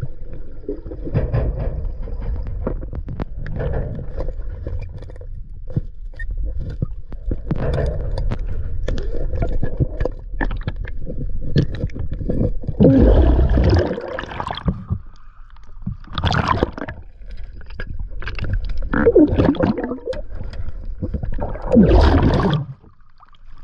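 River water sloshing and splashing as people wade and haul on a magnet rope caught on a sunken sign, with several louder splashes, the biggest about halfway through and near the end. A steady low rumble runs under it.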